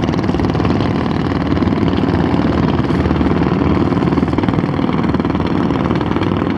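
A steady engine-like rumble runs unchanged throughout, with a fast, even pulsing in it.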